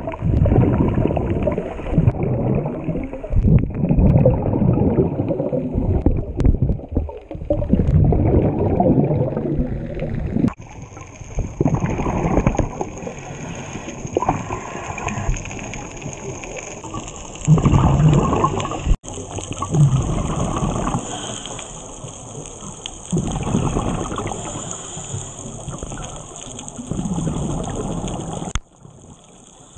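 A scuba diver breathing through a regulator, heard underwater: loud bubbling surges of exhaled air every few seconds.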